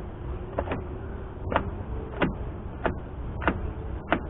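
A regular series of sharp clicks, about one every two-thirds of a second, over a faint steady hum.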